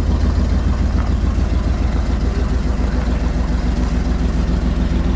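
A vehicle engine idling steadily close by, with a fast, even low pulse.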